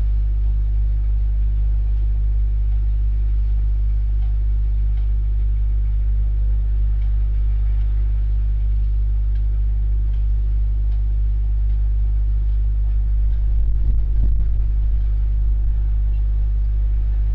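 A steady low hum with evenly stacked overtones throughout, and a brief louder swell about 14 seconds in.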